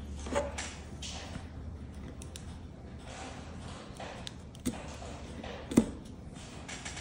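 Hands handling and pressing cardstock cards on a tabletop: soft rustling with a few light taps and knocks, the sharpest about a second before the end.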